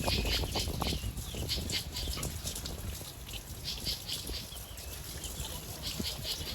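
Birds chirping: short, high calls repeated irregularly over a low rumble.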